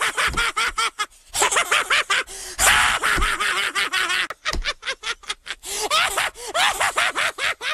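High-pitched cartoon children's voices, broken up like speech, with breathy gasps from a crowd of kids and a hissy burst just under three seconds in.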